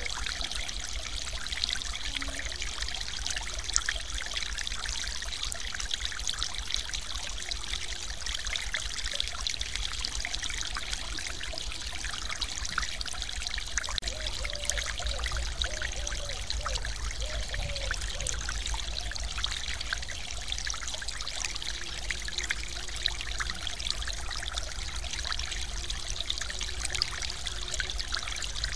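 Water spilling over a small concrete weir in a stream, a steady splashing rush of falling water.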